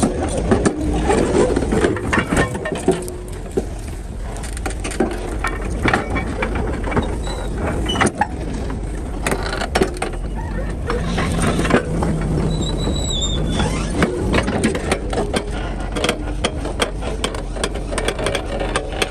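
Excavator at work: engine running steadily under many short metal clanks and knocks, with a brief high squeal about twelve seconds in.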